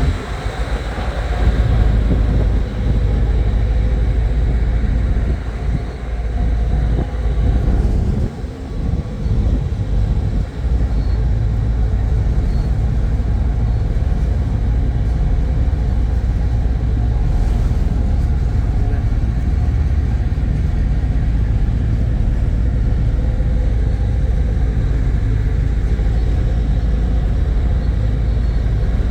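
Low, loud rumble aboard a ferry under way. It builds over the first two seconds, wavers for a few seconds, then holds steady.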